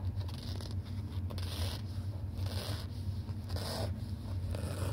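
Freshly sharpened Gerber knife blade slicing through paper in several short strokes about a second apart, each a brief scratchy swish. A steady low hum runs underneath.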